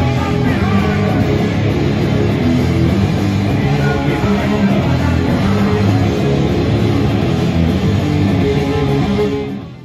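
Live rock band playing loud and steady: electric guitars, bass and a drum kit. The music fades out at the end.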